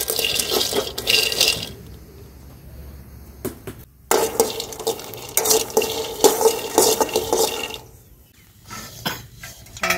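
Peanuts rattling and scraping in a kadai as they are stirred while dry-roasting. It comes in two stretches: a short one at the start and a longer one from about four seconds in.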